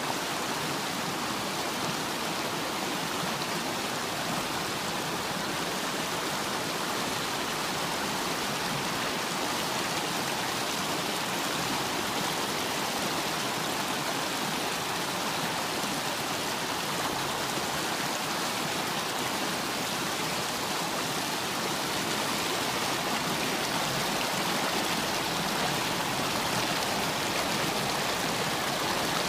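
Shallow river rushing over boulders: a steady wash of water noise, growing a little louder near the end.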